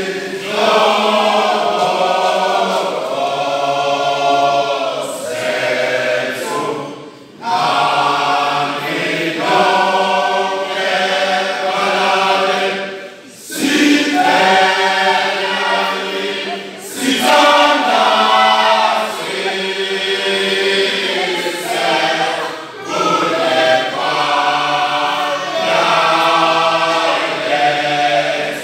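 Isicathamiya choir of young men singing a cappella, in sung phrases broken by brief pauses every few seconds.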